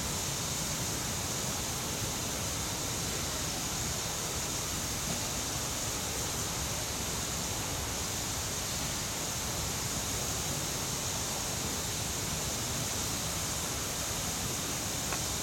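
Steam locomotive standing still, hissing steadily: an even hiss with no chuffing, whistle or change in level.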